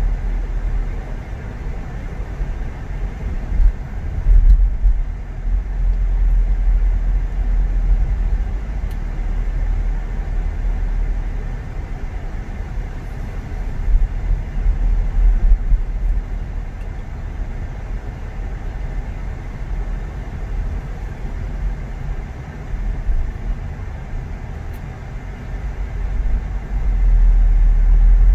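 Steady low rumble of a car being driven, engine and tyre noise together, swelling louder a few times.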